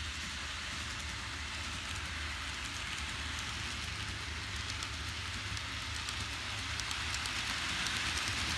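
N-scale Kato model of a JR Kyushu 787 series train running on layout track: a steady hiss of the wheels rolling on the rails over a low motor hum, growing louder near the end as the train comes close.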